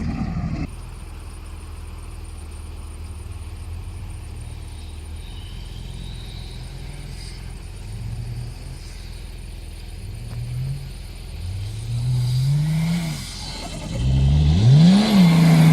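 BMW M51 straight-six turbodiesel, fitted with an M21 2.4 TD turbo and exhaust and running 1.2 bar of boost, idling steadily, then given a few short throttle blips that grow larger. Near the end it is revved hard up and back down with a rushing turbo noise.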